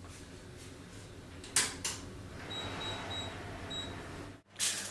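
Two sharp clicks, then a run of short high-pitched electronic beeps from an oven's control panel as its temperature is set, over a low steady hum.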